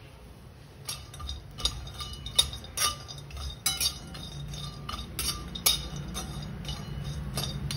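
Flat metal spatula scraping and clinking against a metal kadhai as dried coconut pieces are stirred and tossed while dry-roasting without oil. The clinks and scrapes come at irregular intervals, starting about a second in.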